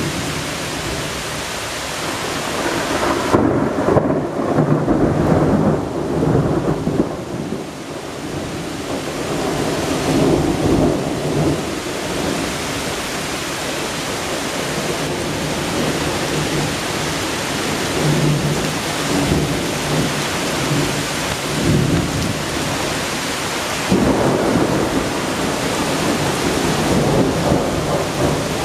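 Heavy rain falling steadily while thunder rumbles again and again, with the strongest rolls about four seconds in and again near the end.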